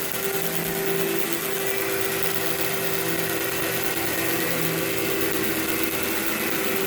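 Workhorse vacuum cleaner running steadily over carpet: a constant motor whine over the hiss of rushing air.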